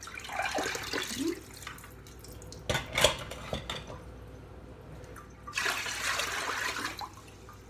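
Soaking water draining and splashing into a sink as a potted orchid is lifted out of its water-filled planter, then a sharp knock, then the planter's water poured out into the sink for about a second and a half near the end.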